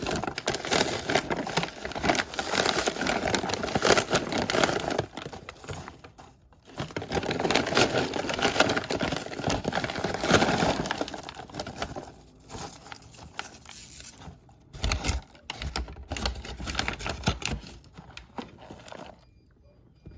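A bag being handled, rustling and crinkling in irregular spurts with quick crackles. It is busiest in the first half and turns sparser after about twelve seconds, with a couple of dull knocks.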